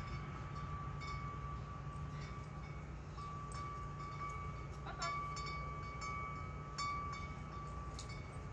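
Wind chime ringing, its tubes struck every second or so with light clicks and held in a steady ring, over a steady low rumble.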